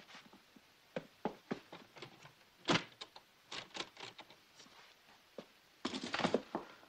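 A string of short knocks and taps a few tenths of a second apart, like footsteps on a hard floor, with one louder thump about three seconds in. Near the end it turns into a dense clatter of rapid knocks.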